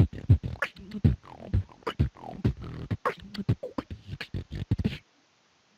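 Beatboxing: a quick run of mouth-made deep kick thumps and sharp snare and hi-hat clicks that stops abruptly about five seconds in.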